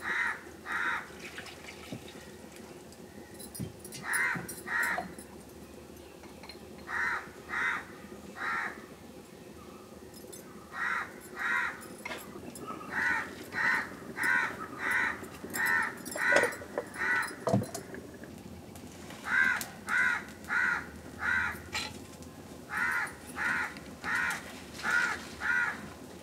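Crow cawing again and again, in runs of two to seven short caws with pauses of a few seconds between runs.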